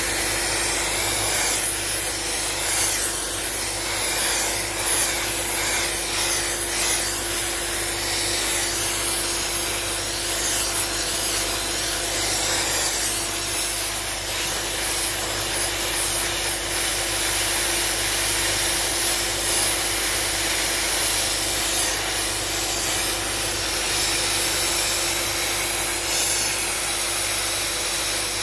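Suction-fed sandblast gun of an SB28 blast pot with built-in vacuum, blasting abrasive media onto a dryer part: a loud, steady hiss of air and grit, with a steady hum underneath.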